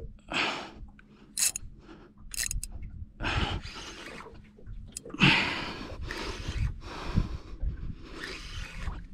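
A man breathing hard, with several loud exhales, while straining against a big fish on a rod and reel. Two short sharp clicks come about one and a half and two and a half seconds in.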